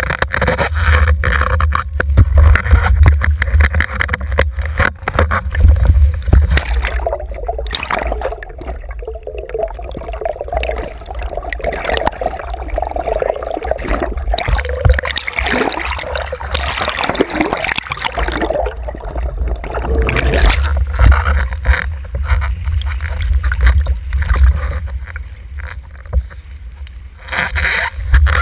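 Wind rumble and rushing water on an action camera fixed to a windsurf rig under sail. From about seven seconds in, the camera is dunked and the sound turns to muffled underwater gurgling. The wind rumble returns after about twenty seconds.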